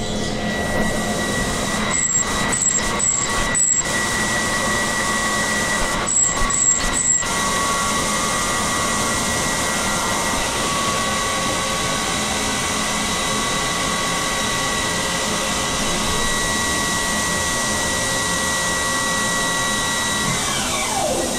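Haas 5-axis CNC mill cutting windows into a chromed spindle: a steady high spindle whine over the hiss of flood coolant spraying. Near the end the whine falls in pitch as the spindle winds down.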